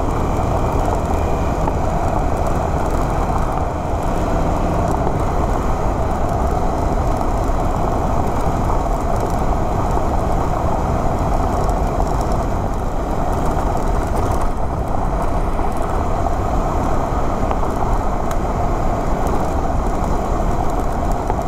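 Motorcycle engine running steadily under way, with steady road and wind noise.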